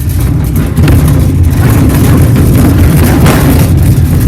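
Riding lawn mower's small engine running hard at speed, a loud rumble with rattling that steps up in loudness about a second in.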